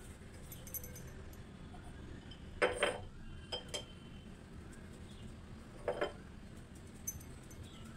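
Light clinks and knocks of kitchenware on a counter, stainless steel plates and a jar being handled: a short cluster about three seconds in and one more near six seconds.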